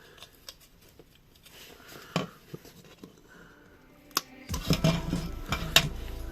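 Small metallic clicks and taps of hand tools squashing a drilled-out rivet: a few scattered clicks at first, then busier clicking in the last two seconds as a low steady hum comes in.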